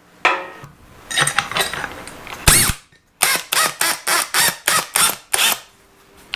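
A 1.25-inch auger bit is being fitted into the chuck of a DeWalt FlexVolt DCD999 hammer drill. There is a louder rattle about two and a half seconds in, then a quick run of short clicks and brief whirs, about three or four a second, as the chuck is tightened.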